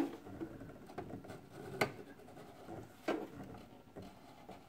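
A few faint, separate clicks and light handling noise from a sewing machine being worked slowly by hand, its lower hook catching the thread instead of picking up the bobbin loop.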